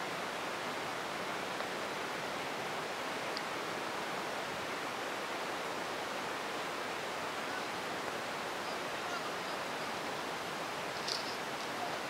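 Very heavy rain pouring down, a steady, even hiss, with a few light ticks of drops near the end.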